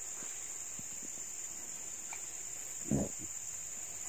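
Steady, high-pitched, unbroken chirring of insects, of the cricket kind. A brief voice sound comes in about three seconds in.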